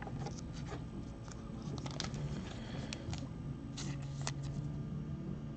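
Trading cards handled and flipped through by hand: faint scattered clicks and rustles of card stock sliding against card stock.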